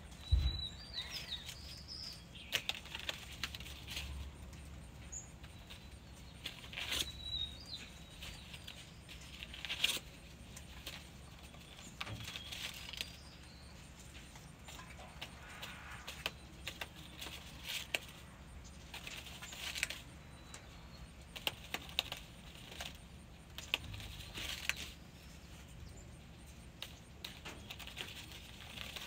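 Red junglefowl rooster preening, its feathers rustling in short, irregular bursts with light clicks. A low thump just after the start, and brief high squeaks near the start and about seven seconds in.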